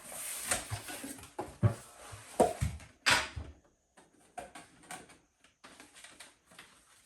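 Rustling and a few sharp knocks of plastic parts and packaging being handled, followed by fainter clicks and rustles.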